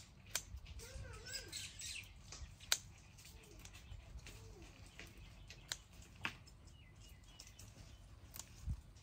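Scissors snipping through sweet potato leaf stems: a few sharp clicks spread out one by one. Faint bird calls waver in the background now and then.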